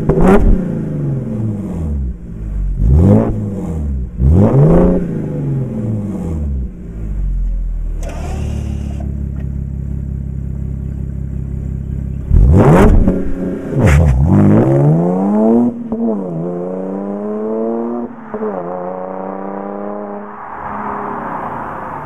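Audi S4 B8's supercharged 3.0-litre V6 through a Miltek non-resonated cat-back exhaust, revved in quick blips several times with steady running in between. Near the end the car pulls away and accelerates off with two upshifts, fading into the distance.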